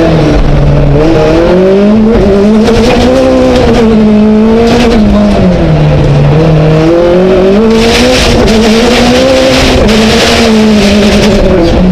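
Skoda Fabia Super 1600 rallycross car's 1.6-litre four-cylinder engine heard from inside the cockpit, revving hard. Its pitch climbs and drops again and again through gear changes and corners. From about eight seconds in, a rushing noise of tyres on loose gravel joins it.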